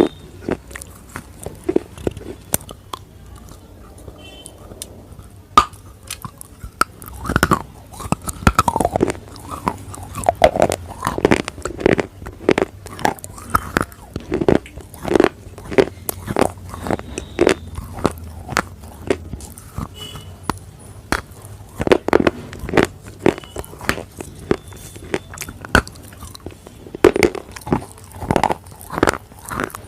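Close-up biting and chewing of a slate bar: sharp, crisp crunches, sparse for the first few seconds and then coming steadily, about one to two a second.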